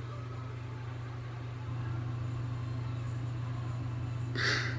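Steady low hum of room background noise, with a man's short sharp sniffle while crying, near the end.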